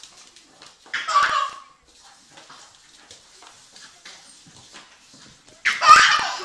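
A pug tugging at a baby's tights gives two short high-pitched vocal sounds, one about a second in and a louder one near the end.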